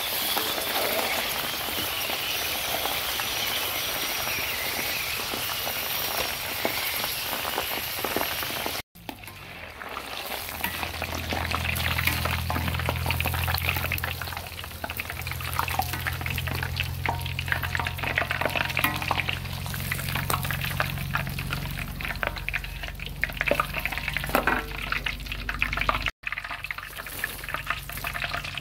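Dung beetles deep-frying in a pan of hot oil, the oil sizzling and bubbling hard while a metal ladle stirs and clicks against the pan. The sound cuts off briefly twice, about nine and twenty-six seconds in; after the first cut a low steady hum lies under the frying.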